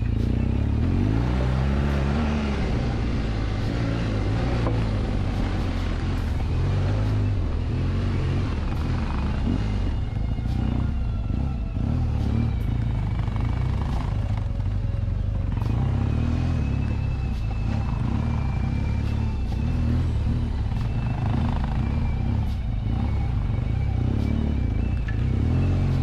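BMW R1200GS flat-twin engine running as the bike rides a dirt trail, with the throttle rising and falling about two seconds in.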